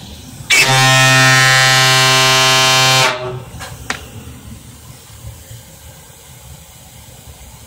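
Homemade PVC fog horn sounded with compressed air: one steady, low, buzzy blast of about two and a half seconds that cuts off sharply, followed by two short clicks.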